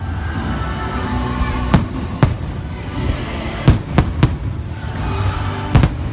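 Fireworks bursting overhead: about seven sharp bangs at irregular spacing, the last two close together, over music.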